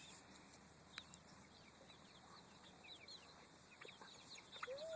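Chickens clucking faintly, with short soft calls scattered through and one louder drawn-out call near the end.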